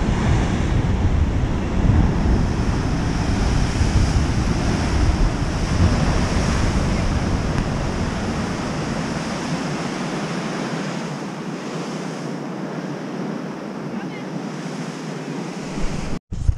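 Ocean surf breaking below rocky cliffs, a steady rushing wash, with wind buffeting the microphone. The low rumble thins out about two-thirds of the way through, and the sound cuts out briefly just before the end.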